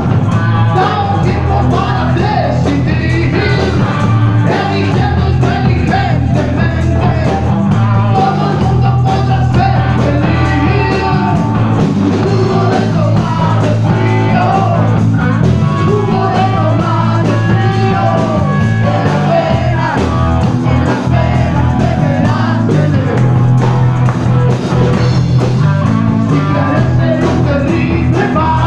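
Blues-rock band playing: a singing voice over guitar and a steady bass line.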